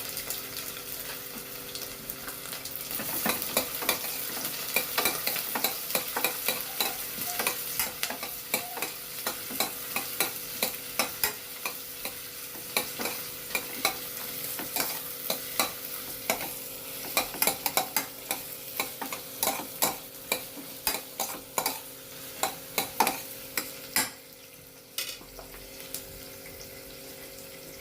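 Onions frying in hot oil in a pan, sizzling, while a spoon stirs them with frequent clicks and scrapes against the pan. The stirring stops near the end, leaving the sizzle and a faint steady hum.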